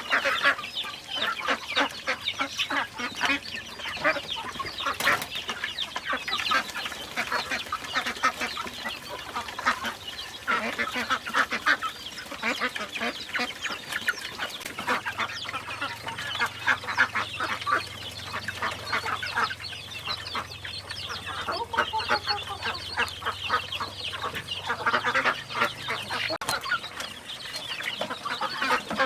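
A flock of chickens clucking, many short calls overlapping without pause.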